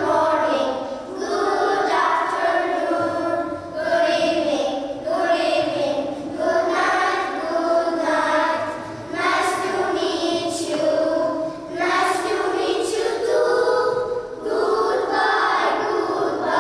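A group of young children singing together, in phrases a second or two long.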